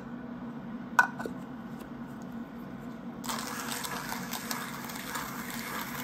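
Kinu hand coffee grinder being worked and handled: a sharp metallic click about a second in, then about three seconds of dense scratchy crunching that stops suddenly.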